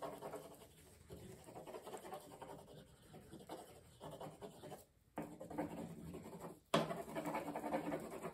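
Crayon scribbling on paper, colouring in grass, alongside a low steady pitched sound that comes in three stretches, the last two starting abruptly about five and nearly seven seconds in.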